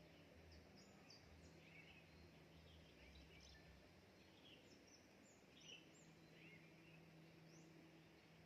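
Near silence with faint, scattered short high chirps of small birds and a faint steady low hum.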